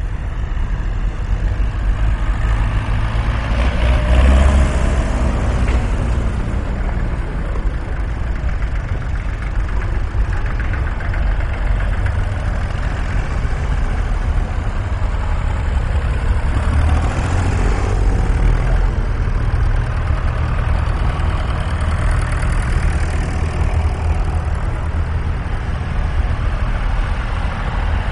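Tractor engines running with a steady low rumble, rising briefly about four seconds in and again around seventeen seconds.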